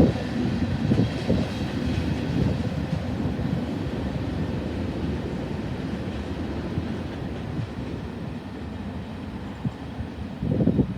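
Freight train cars rolling past on the rails, a steady rumble that slowly fades as the train draws away.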